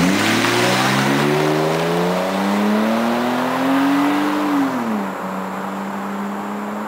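BMW 525i straight-six with a Magnaflow exhaust and deleted resonator, accelerating: the exhaust note climbs steadily for about four seconds, then drops off sharply and settles into a steady lower drone.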